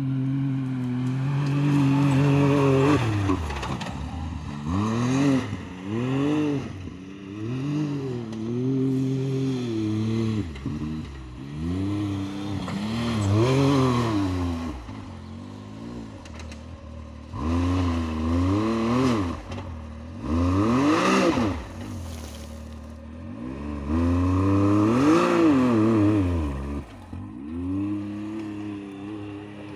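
Can-Am Maverick X3 side-by-side's turbocharged three-cylinder engine being driven hard on sand. It holds a steady note for the first few seconds, then revs up and down over and over with the throttle.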